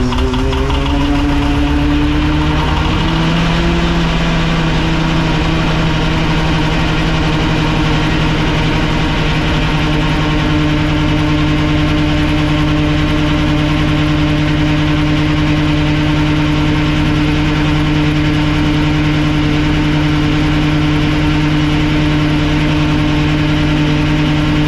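Small inboard marine diesel engine catching on the starter and running steadily, its speed climbing over the first few seconds and then holding even.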